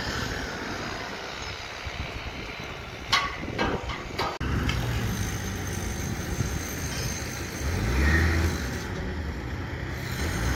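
Construction-site noise with a few sharp knocks, then, after a cut, a wheel loader's diesel engine running steadily and growing louder about three-quarters of the way through as the machine works.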